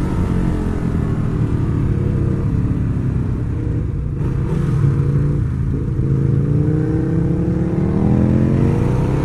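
Ducati Hyperstrada's 821cc L-twin engine heard from on board while riding, easing off in the first few seconds, dipping briefly about four seconds in, then pulling with a steadily rising pitch as the bike accelerates.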